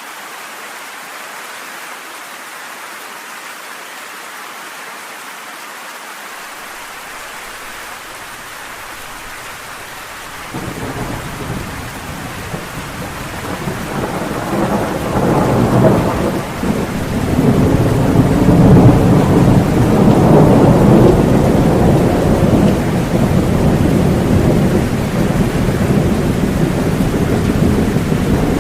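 Steady rain, then about a third of the way in a low rumble of thunder comes in suddenly, swells and keeps rolling loudly to the end over the rain.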